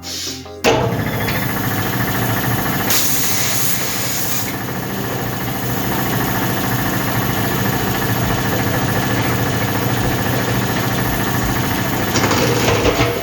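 Air compressor running steadily while a car tire is inflated through its valve stem, with stretches of rushing air hiss about three seconds in and again near the end.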